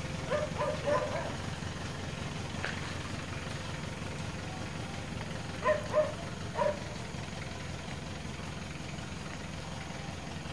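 A dog barking in short bursts, a few within the first second and three quick barks about six seconds in, over a steady low hum.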